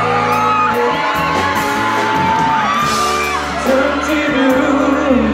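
Live pop band playing: a male singer holds long sung notes over keyboard, electric guitars and drums keeping a steady beat.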